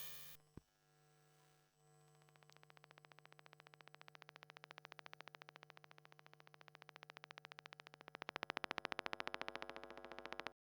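Electromagnetic noise from an electronic device picked up by a piezo microphone: a hum ends with a click, then a rapid, even electrical pulsing over a low hum grows louder and cuts off suddenly near the end.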